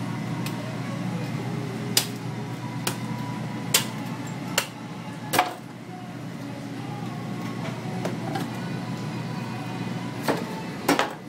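A knife knocking and clicking against a cutting board about six times as a large grouper is filleted, over a steady low kitchen hum.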